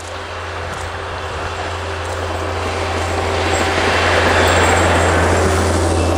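Avant compact loader's engine running as the loader drives through snow toward and past the microphone, growing steadily louder and loudest about four seconds in.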